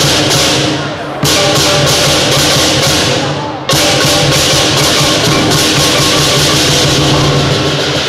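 Lion dance percussion: a big drum beaten with clashing cymbals and a ringing gong, played loud and fast. The cymbal crashes break off briefly about a second in and again about three and a half seconds in, then carry on.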